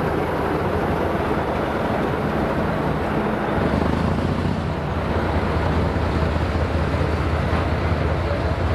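Diesel locomotive engine running steadily with a low drone, which grows louder about three and a half seconds in.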